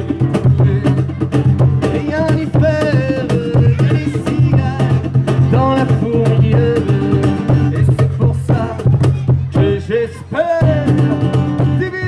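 A live acoustic duo: a man singing over a strummed acoustic guitar, with a cajón slapped by hand keeping a steady beat.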